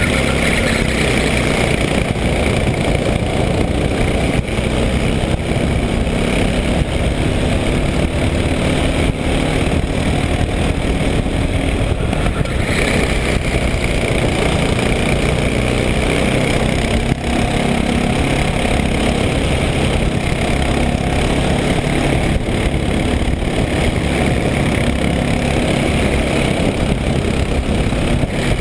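Go-kart engine running hard at racing speed, heard from a camera mounted on the kart, its note drifting slightly up and down through the corners.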